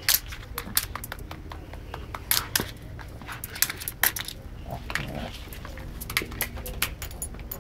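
Small dog gnawing and gripping a dried pig ear, the hard ear giving irregular sharp clicks and crackles.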